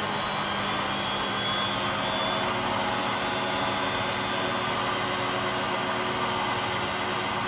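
Hotpoint Aquarius WMA58 washing machine running with a steady mechanical noise full of whining tones, the sound of worn motor bearings and drum bearings.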